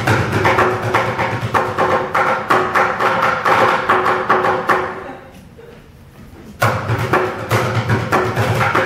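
Live percussion: a fast, even run of sharp stick-like strikes that dies away about five seconds in, then comes back suddenly after a pause of about a second and a half.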